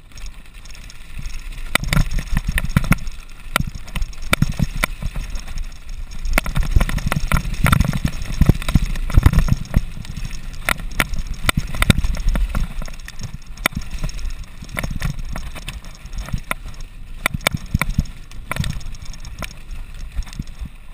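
Mountain bike descending a rough gravel and sand trail: a steady clatter and rattle of tyres, frame and chain over loose stones, over a low rumble of wind on the microphone. It is busiest and loudest a few seconds before the middle.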